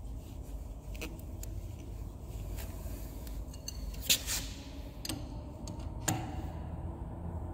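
Metal hose fittings clicking and clinking as a high-pressure hose is screwed onto a pressure cleaner's outlet coupling and an adjustable spanner is put on to tighten it. There is a sharp metallic clack about four seconds in and another clink about six seconds in, over a low steady hum.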